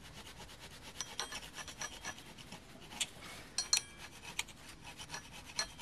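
Cold chisel scraping leftover old gasket off the mounting flange of a Ford 300 straight-six water pump, in quick repeated strokes of steel on metal, with a few sharper scrapes near the middle.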